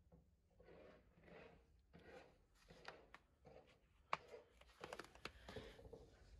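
Near silence, with faint rustling and a few soft clicks; the sharpest click comes about four seconds in.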